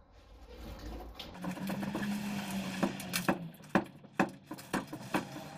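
Rusted steel front wing of a Mk2 Ford Escort being pulled and flexed by hand. A steady low tone sounds for about two seconds, then a string of sharp metallic clicks and knocks as the rotten panel shifts on what little welding still holds it.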